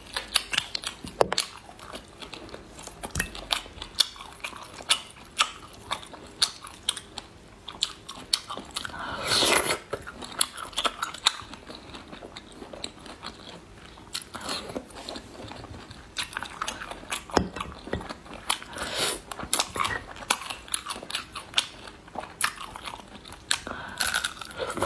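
Close-miked eating of snail meat: wet chewing with many sharp mouth clicks and lip smacks, and a few louder slurps.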